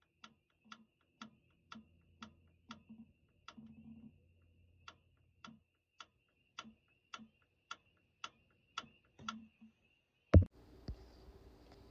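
A John Deere 310K backhoe transmission solenoid clicking as it is switched on and off through a test plug, a short sharp click about twice a second with a faint steady high tone underneath. A crisp click like this is what a working solenoid makes, unlike the weak sound of the faulty one. One loud thump comes near the end.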